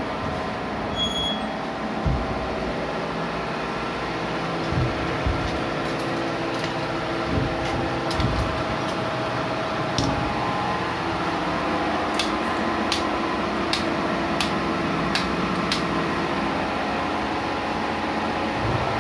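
Yanmar diesel generator running with a steady drone, with scattered sharp clicks and a few low knocks over it.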